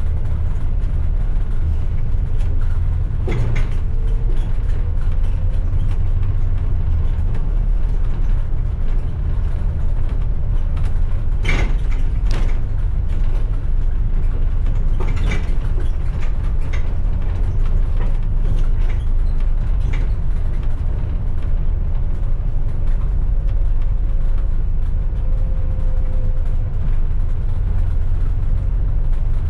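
A bus driving along a city street, its engine giving a steady low rumble. A few short knocks or rattles come through about three seconds in, twice around twelve seconds, and again near fifteen and twenty seconds.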